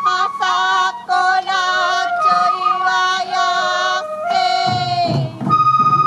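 A solo voice sings a long, drawn-out phrase of a Sansa odori song, with wavering held notes and almost no accompaniment. Near the end the taiko drums come back in, followed by the high bamboo flute.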